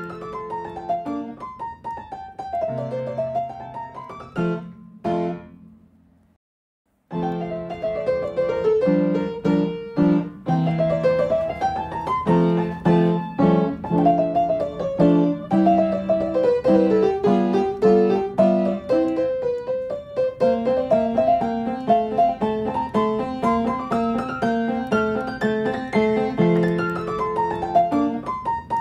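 Background piano music of quick up-and-down note runs over low held chords; it fades out about five seconds in, goes silent for a second, then starts again.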